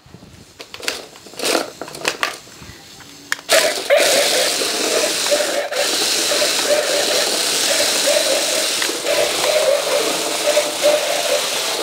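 The electric drive motors of a toy RC stunt dog whirring steadily as it rolls on its wheels across a concrete floor. The whirring starts about three and a half seconds in, after a few light clicks.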